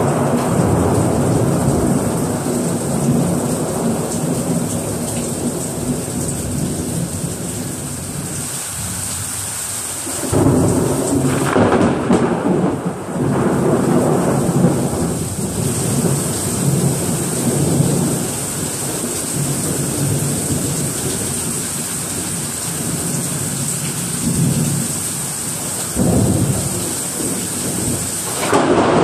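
Thunder rumbling almost without pause over heavy rain. Loud new thunder breaks in suddenly about ten seconds in, and twice more near the end.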